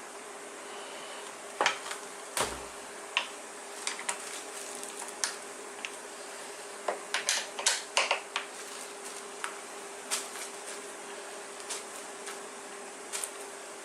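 Scattered metal clicks and clinks of tools and small parts being handled, with a quick run of them about halfway through, over a steady hum.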